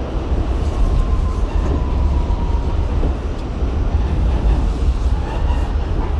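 R68 subway train running along the track: a steady, heavy low rumble of wheels and car, with a faint thin tone sliding slightly lower about a second in.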